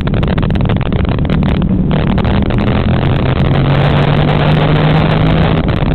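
An engine running steadily under loud rumble and crackling noise, its low tone holding level throughout.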